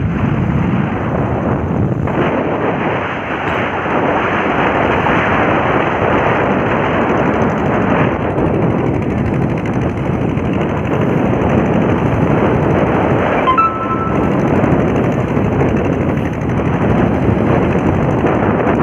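Engine of a vallam fishing boat running steadily under way at sea, with a rapid, continuous pulsing and wind noise on the microphone. The boat is being test-run to check that it runs well.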